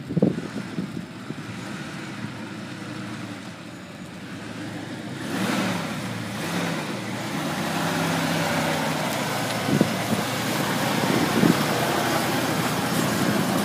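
Lifted full-size Ford Bronco's engine running as the truck crawls through muddy ruts, growing louder from about five seconds in as it comes close. A couple of brief thumps come near the end.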